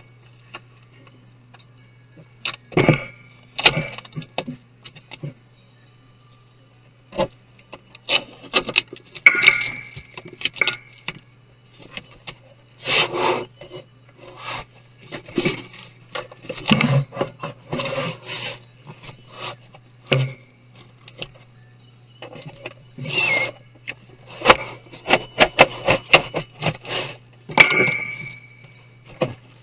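Irregular clicks, knocks and short scrapes of a Lenovo computer's plastic and metal parts being pried, handled and set down during disassembly, over a faint steady low hum.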